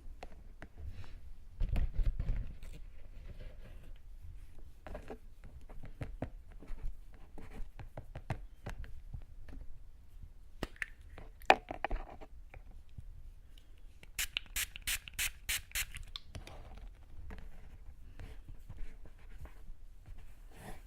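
Tweezers picking and scraping sticky fake earwax inside a silicone ear model, with scattered soft clicks, taps and rubbing. About two-thirds of the way through comes a quick run of about eight crisp, sharp strokes.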